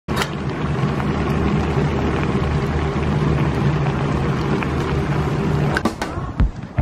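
A pan of spicy squid noodle stew boiling hard over a gas burner, with a steady low rumble. It cuts off with a click about a second before the end.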